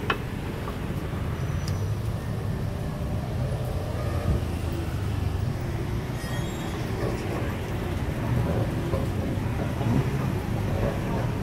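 Busy city street ambience: a steady low rumble of traffic with indistinct voices of people around.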